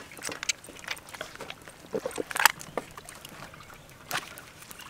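Wet handling noises of hands working a raw whole chicken on a wooden chopping board: scattered soft squelches, slaps and knocks, with the loudest cluster about two seconds in and another knock near the end.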